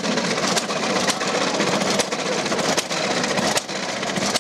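1897 Léon Bollée tricar's 640cc single-cylinder engine running as the machine moves slowly off, with a fast, even mechanical beat.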